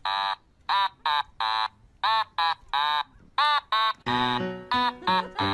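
Background music: a rhythmic melody of short, voice-like pitched notes, about three a second, with a bass line coming in about four seconds in.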